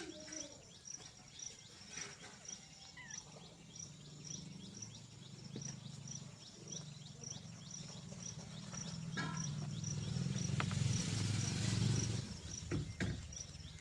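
Insect chirping steadily, a short high chirp about three times a second. A low rumbling noise swells and fades near the end, with a few faint clicks.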